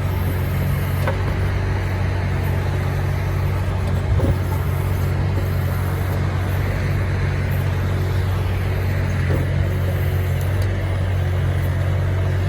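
Sherpa WE18 mini excavator's engine running steadily, with a light knock about four seconds in.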